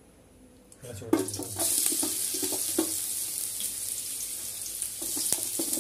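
Sliced onions tipped into a hot metal pot, landing with a clatter about a second in and then sizzling steadily as they start to fry.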